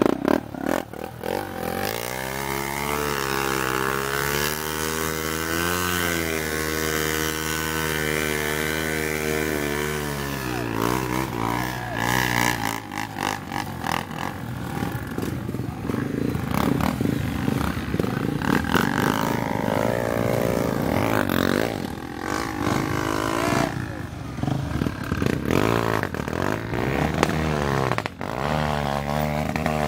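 Dirt bike engines revving in a mud bog, the revs wavering up and down. After about ten seconds the sound turns rougher and choppier, with engines blipping on and off. Near the end another dirt bike revs close by.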